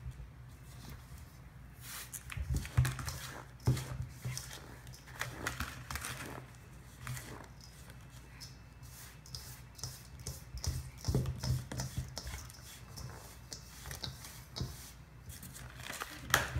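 Hands mixing and squeezing damp bath bomb powder in a stainless steel bowl: irregular soft rustles and scrapes, with a few sharper knocks.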